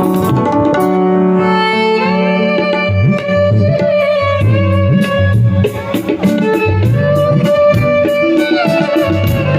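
Violin melody of held notes with sliding pitch, played over a backing of bass and a steady ticking beat.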